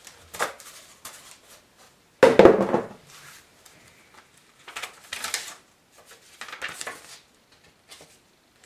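Cardboard packaging and paper being handled and shuffled: a few separate bursts of rustling and scraping, the loudest about two seconds in.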